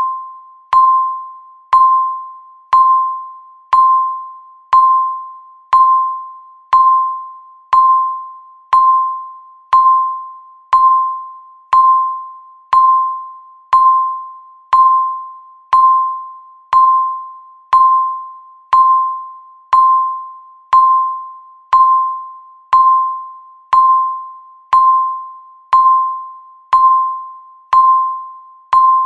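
Countdown timer beeps, one each second: a short mid-pitched electronic ding that starts sharply and fades fast, repeating at a perfectly even pace.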